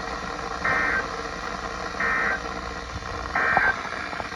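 Three short bursts of Emergency Alert System SAME data tones, the end-of-message code that closes a weather radio alert. Each burst is a buzzy digital warble about a third of a second long, and they come about 1.3 seconds apart over steady radio hiss.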